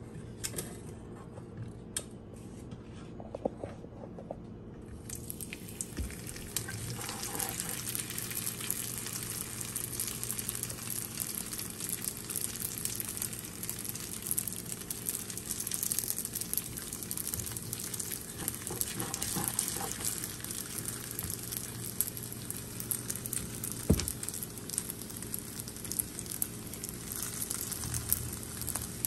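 Potato-filled pastry squares sizzling in shallow hot oil in a nonstick frying pan. The crackling sizzle starts about five seconds in and then runs on steadily, with one sharper knock late on.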